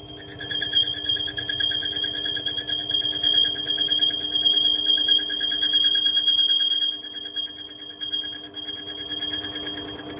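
Bench mini metal lathe running while turning a round motorcycle part. It makes a steady high-pitched whine with a fast flutter, which drops in loudness about seven seconds in.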